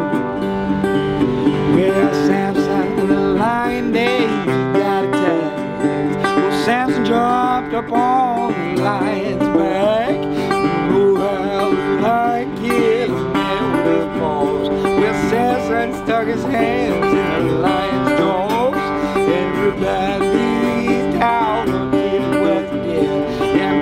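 Resonator guitar fingerpicked in an instrumental blues break, with steady low bass notes under a busy treble line whose notes bend in pitch.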